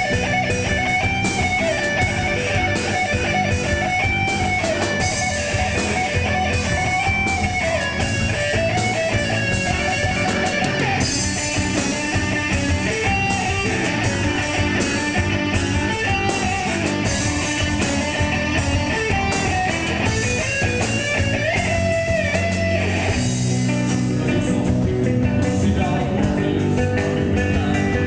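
Live metal band playing loudly: a lead electric guitar solo with bending melodic lines over drums and bass. About 23 seconds in, the lead line stops and the band moves into lower, heavier chords.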